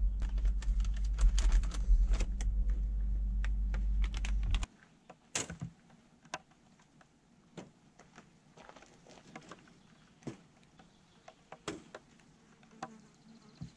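A steady low hum with sharp clicks and handling noise that cuts off abruptly about four and a half seconds in. Then quieter scattered clicks and clacks of a metal folding table being unfolded and set up.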